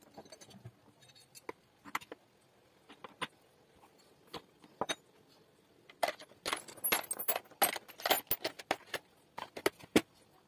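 Small metal fasteners, bolts and screws, clinking against one another and against a wooden board as they are handled: scattered clicks at first, then a busier run of clinks a little past the middle.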